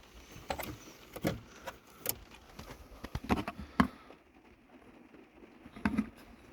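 Handling noise: a run of irregular clicks and knocks, about half a dozen, the sharpest a little under four seconds in.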